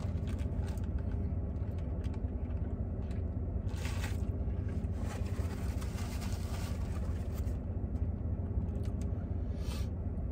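A car's engine idling, a steady low rumble heard inside the cabin, under a man chewing a mouthful of sandwich. A foil sandwich wrapper rustles in brief bursts, about four seconds in and again near the end.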